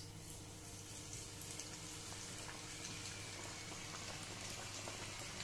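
Breadcrumb-coated aloo tikki deep-frying in hot oil in a kadhai, a steady sizzle and bubbling, freshly turned over to crisp the second side.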